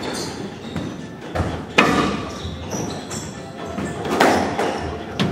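Squash rally: several sharp hits of the ball off racquets and the court walls, the loudest about two seconds in, with shoes squeaking on the wooden floor between shots.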